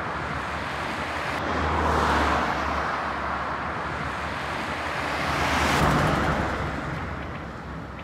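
Road traffic: cars passing by on a paved road, the noise swelling twice, about two and about six seconds in.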